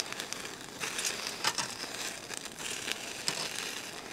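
Gar fillets sizzling on a wire grill rack over a gas flame, with irregular sharp crackles and pops.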